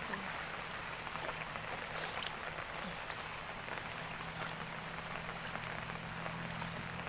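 Heavy rain falling: a steady hiss of rain with scattered drops striking close by, one louder drop about two seconds in.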